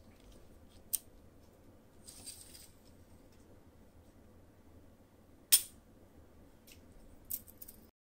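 Tape measure and metal bar being handled: a few light clicks and a short rustle, with one sharp click a little past halfway and a few small ticks near the end.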